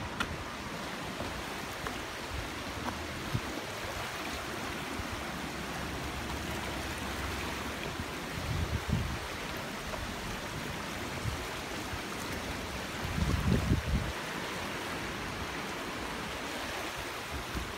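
River Tame running high and fast after rain, a steady rushing of water over stones. A couple of low rumbles on the microphone break in, the loudest about 13 seconds in.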